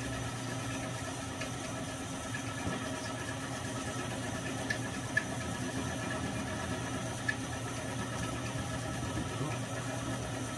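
Small milling machine running steadily as its end mill plunges into a metal crankcase half: an even motor hum with a few sharp ticks around the middle.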